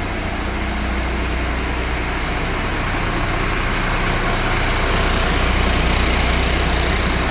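A heavy diesel engine running steadily with a deep hum under a broad mechanical hiss, growing slightly louder.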